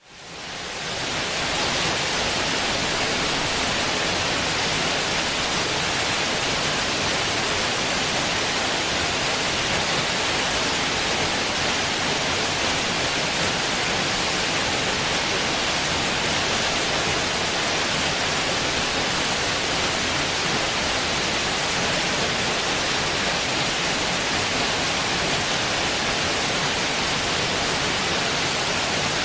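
Steady, even hiss of rushing noise, fading in over the first second or two and then holding unchanged.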